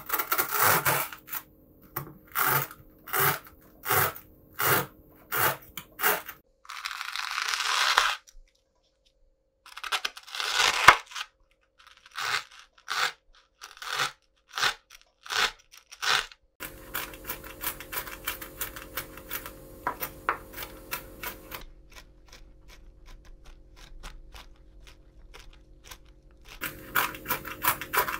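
Close-miked test sounds: a run of short scratchy strokes about every 0.7 seconds, then a longer rustle. After a short gap come a few evenly spaced clicks, and past the middle a dense run of quick light clicks, like typing.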